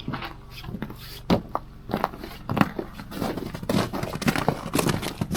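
Irregular knocks, scuffs and footsteps as 2x6 boards are carried and handled, over a low steady hum.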